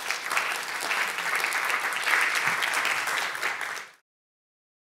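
Audience applauding, a dense patter of many hands clapping that stops abruptly about four seconds in.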